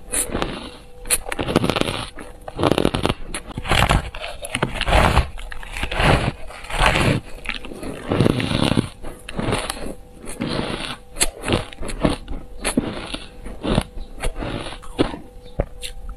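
Close-up chewing and crunching of frosty purple ice, a bite crunching about once a second.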